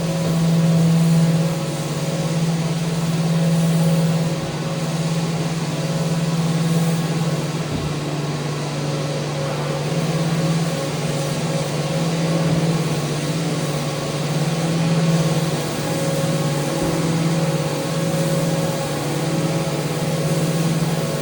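Electric power sander running continuously while sanding a handrail, with a steady motor hum and a gritty hiss. Its level rises and falls a little as it is worked along the rail.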